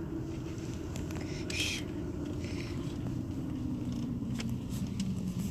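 Car engine and road noise heard from inside the cabin: a steady low hum whose engine note drops slightly partway through, with a few faint clicks and a brief hiss about a second and a half in.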